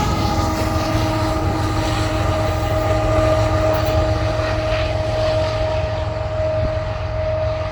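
Freight train passing: a heavy low rumble with a steady whine over it, its pitch sagging slightly at the start and then holding level.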